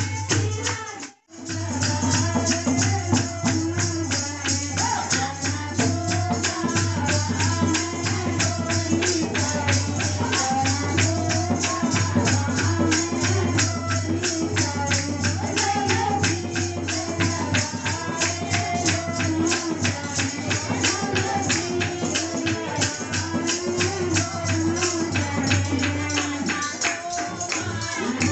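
Women singing a Mata ji kirtan, a Hindu devotional song to the goddess, over a fast, steady jingling beat of hand percussion. The sound cuts out for a moment about a second in.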